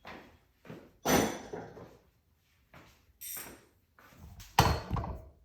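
A handful of sharp metal clunks and knocks from hand tools at work on the tightly torqued seat-mount bolts, the loudest about a second in and another near the end.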